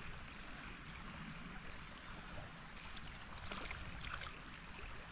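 Creek water running steadily over the stream bed, with a few faint light ticks in the second half.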